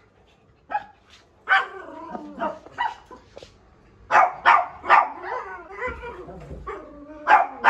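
Small dogs, shih tzus and a poodle, barking in short, sharp barks, several in quick runs. They are barking at a newly arrived dog.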